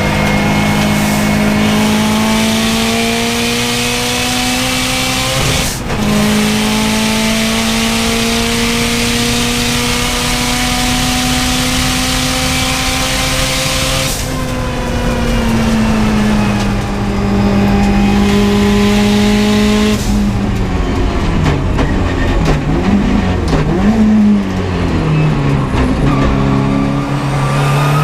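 Turbocharged Subaru WRX STi race car's flat-four engine pulling hard on track, its pitch climbing steadily with a quick gear change about six seconds in. About halfway through the engine note drops as it comes off the throttle. In the last third the revs swing down and up several times before climbing again at the end.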